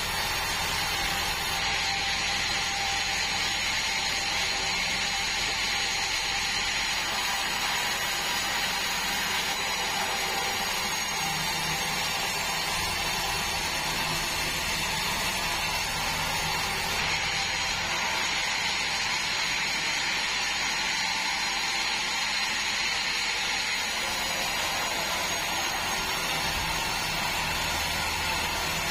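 Band sawmill running with a steady mechanical noise.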